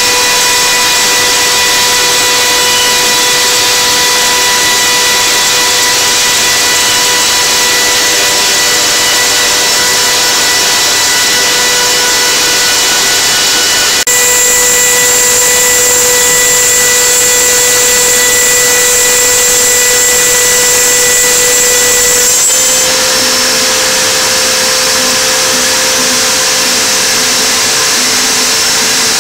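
CNC router spindle running at high speed and milling a 2 mm aluminium composite (Dibond) panel: a steady high whine over a hiss of cutting. Its tone changes slightly about two-thirds of the way through.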